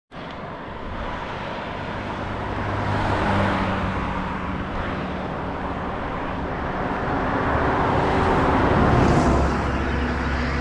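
Road traffic with motor vehicles passing, swelling about three seconds in and again near nine seconds, over a steady engine hum.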